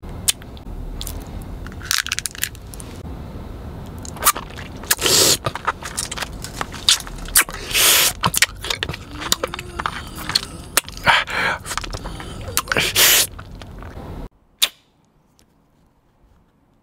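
Plastic candy wrapper crinkling and a Super Soda candy being bitten and chewed close to the microphone: irregular sharp crackles and crunches over a steady hiss. It cuts off suddenly about two and a half seconds before the end, leaving one last click and then near silence.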